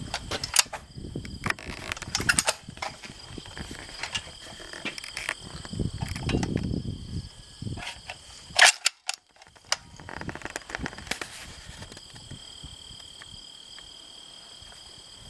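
Scattered sharp cracks of gunfire at a shooting range, with lighter clicks between them; the loudest crack comes about eight and a half seconds in.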